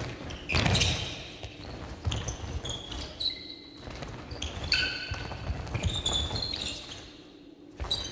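Athletic shoes squeaking in many short chirps on a sports hall floor, over the thud of running feet, as several players run and change direction quickly.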